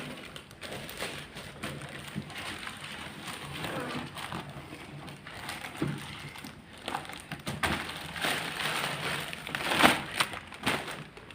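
Packaging being handled during an unboxing: crinkling and rustling with scattered clicks and knocks, the loudest burst a little before the end.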